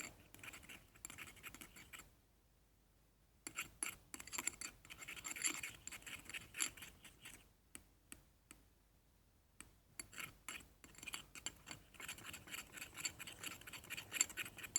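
Teaspoon stirring and scraping a thickening shampoo-and-salt slime mixture around a small plate, in scratchy spells with a short pause about two seconds in and a sparser stretch of light clicks partway through.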